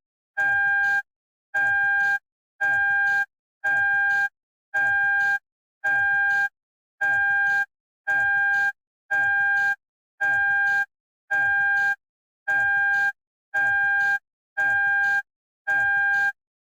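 Toyota seatbelt reminder chime beeping steadily, about one long beep a second with short gaps between, all at the same pitch and loudness: the warning that a seatbelt is unbuckled.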